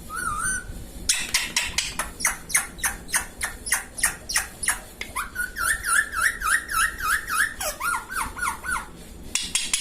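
Indian ringneck parrot calling: a run of short, sharp chirps about three a second, joined about halfway through by a warbling trill that wavers up and down.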